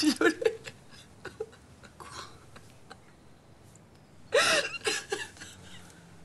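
A woman crying: short gasping sobs at the start, then a loud drawn-out sob with a rising and falling pitch about four seconds in.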